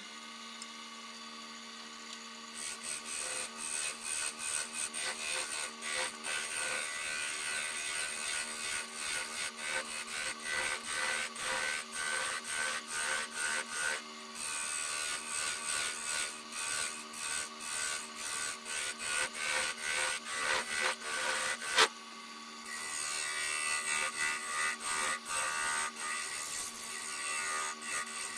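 Wood lathe running with a steady hum while a tool or abrasive is worked against the spinning black walnut in rhythmic rubbing passes, about one and a half a second. The passes start a couple of seconds in, break briefly about halfway through, and stop after a sharp click about three quarters of the way through, then resume.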